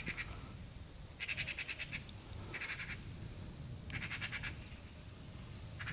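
Insects chirping in short trains of rapid high pulses, each under a second long, four of them in a row, over a faint steady high buzz.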